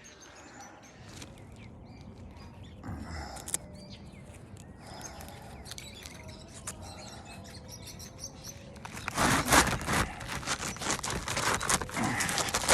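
Birds chirping faintly, then from about nine seconds in a run of loud, irregular scraping and rustling.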